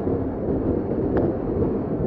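Creek water running over rocks in a small cascade, a steady low rush, with a single sharp tap about a second in.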